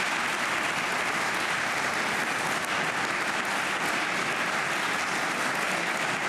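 Applause from many people in the parliamentary chamber: steady, dense clapping that keeps an even level throughout.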